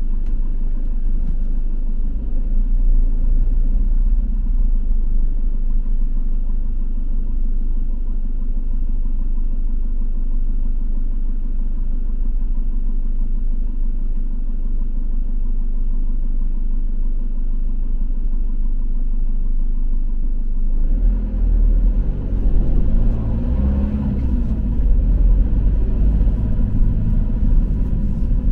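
Low, steady rumble of a delivery vehicle's engine and tyres heard from the cab while driving in city traffic. About twenty seconds in it gets louder and rougher.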